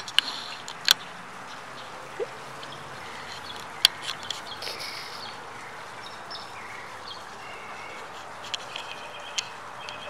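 Outdoor ambience: a steady hiss with faint bird chirps and a few sharp clicks, the loudest near the start and about four seconds in.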